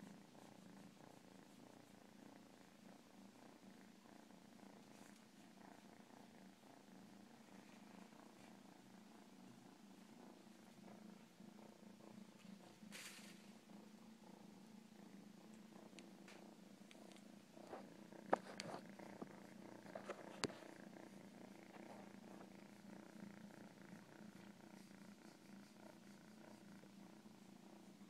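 Domestic cat purring steadily and faintly close to the microphone, a low pulsing rumble. About two-thirds of the way through, a few sharp clicks cut in over it.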